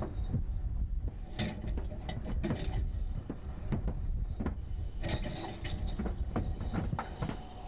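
Boots on a standing-seam metal roof and lanyard hardware clinking along a steel lifeline. Clusters of sharp metallic clicks come about a second and a half in and again around five seconds in, over a steady low rumble.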